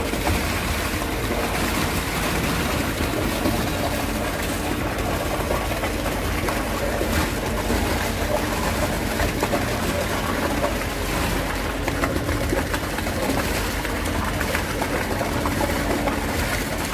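Concrete pump truck running during a pour: a steady engine rumble with the pumping noise of concrete being pushed through the line.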